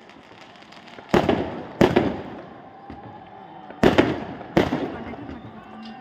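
Aerial fireworks bursting: four sharp bangs in two pairs, the pairs about two and a half seconds apart, each followed by a fading echo.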